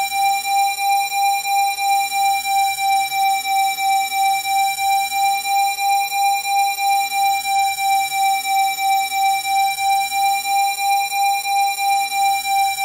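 Steady electronic sine-like tone at 787 Hz, a Rife frequency, with a gentle pulsing in loudness about two and a half times a second. Fainter tones sweep up and down slowly beneath it.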